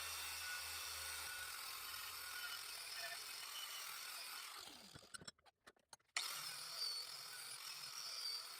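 Faint room tone: a steady low hiss, with a low hum in the first second or so, dropping out to silence for about a second around five seconds in.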